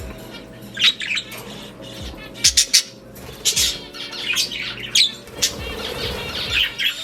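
Budgerigars squawking and chirping in short, sharp, scattered calls, with a quick run of three about two and a half seconds in.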